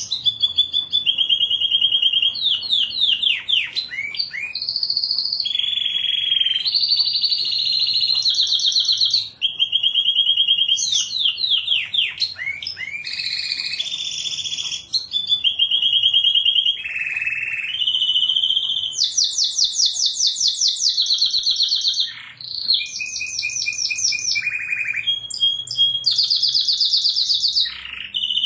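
Domestic canary singing a continuous song of rapid high trills and repeated phrases, switching to a new phrase every second or two.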